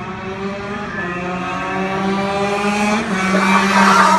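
Racing kart engine accelerating, its pitch rising steadily and getting louder toward the end.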